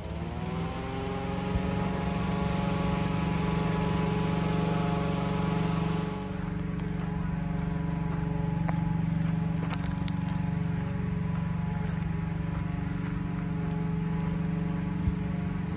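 An engine revving up over the first second, then running steadily at an even, fairly high pitch.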